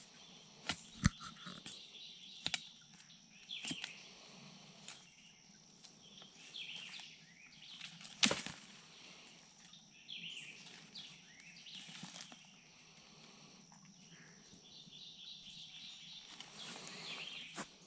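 A shovel digging into pine straw and soil: scattered scrapes and chops, the sharpest about one second and about eight seconds in. A steady insect drone continues throughout.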